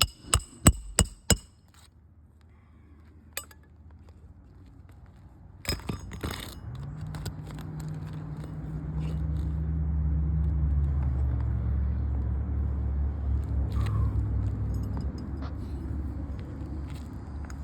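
Four quick hammer strikes on roofing nails with a metallic ring, then a couple more knocks a few seconds later. After that a vehicle's engine drones low and steady for several seconds, then fades.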